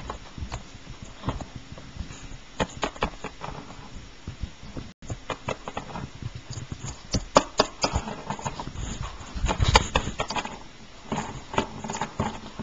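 Plastic Littlest Pet Shop toy figures tapped and shuffled on a hard surface: irregular light clicks and taps, busier in the second half.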